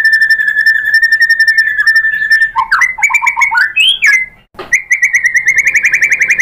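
White-rumped shama (murai batu) singing: a fast trill of rapidly repeated notes, then a burst of varied whistled notes jumping up and down in pitch, a brief break with a click, then another fast trill.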